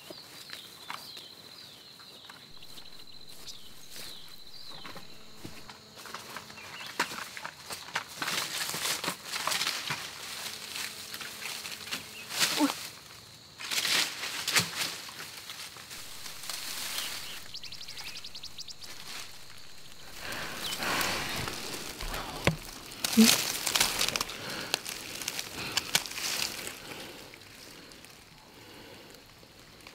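Dry leaves, twigs and brush rustling and crunching in irregular spells as a person moves through dry undergrowth and leaf litter, with a few louder sharp crunches near the middle and about two-thirds through. A steady high whine sounds in the first few seconds.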